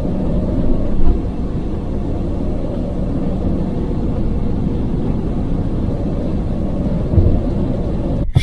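Steady drone inside a semi-truck cab at highway speed: diesel engine, road and wind noise, heavy in the low end, in strong sandstorm wind. Two louder thumps come through, about a second in and near the end.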